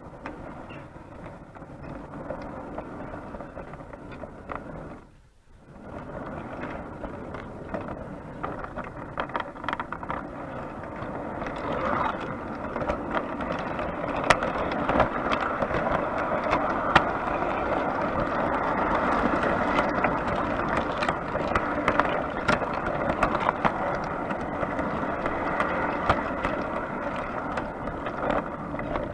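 O gauge three-rail model train running along its track, a steady rattle of wheels on rails with frequent sharp clicks. It dips almost to nothing about five seconds in and runs louder from about twelve seconds in.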